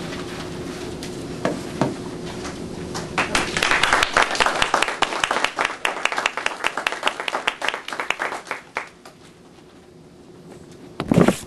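A small audience clapping at the end of a children's play. The clapping builds about three seconds in and thins out over the next several seconds. There is a brief loud noise just before the end.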